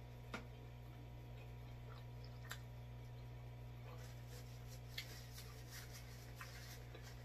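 Faint clicks and small handling noises as a piece of food is picked out of a cardboard pizza box and pulled apart by hand, a few sharper clicks standing out, over a steady low electrical hum.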